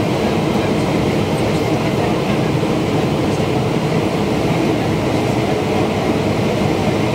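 Steady cabin noise inside a Boeing 777-200ER on approach: engine and airflow rumble, even and unchanging, with a faint steady hum.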